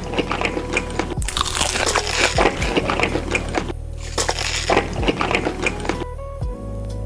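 Crunchy food being bitten and chewed close to the microphone: a run of sharp, irregular crunches.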